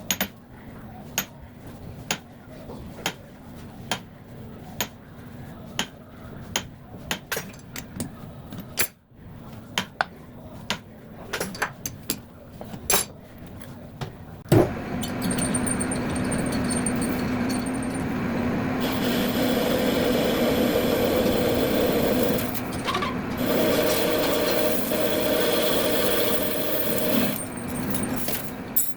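Sped-up machine-shop sounds: irregular sharp clicks and knocks of handling and setting up work, then about halfway a knock and a metal lathe running steadily with a humming tone.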